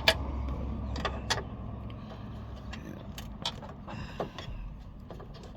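Scattered small metallic clicks and clinks of screws and a screwdriver being handled and pulled out, the sharpest right at the start, over a low hum that fades.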